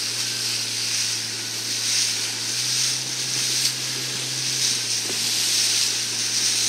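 Steady hiss of water rushing and spraying past boat hulls moving at speed, with a steady low hum underneath.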